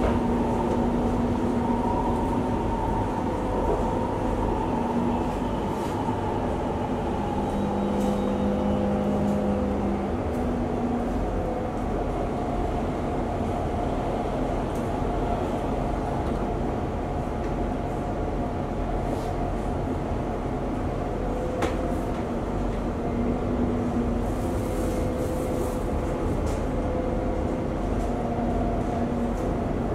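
Inside a Singapore MRT train car running between stations: a steady rumble of wheels and running gear with a hum of several steady tones that shift slightly in pitch, and a few faint clicks.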